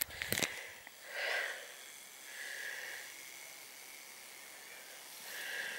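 Faint, soft breathing close to the microphone, in three slow hissy breaths spread across the few seconds, after a couple of small clicks at the start.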